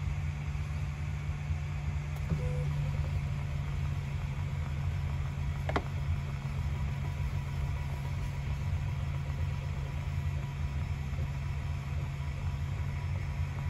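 Steady low machine hum from the running laser-engraving setup, with a faint click about two seconds in and another near six seconds.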